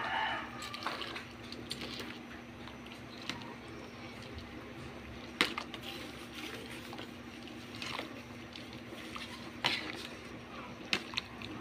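Water bubbling and sloshing in a steel pot of cooking spaghetti, over a steady low hum. A few sharp clicks come about halfway through and near the end.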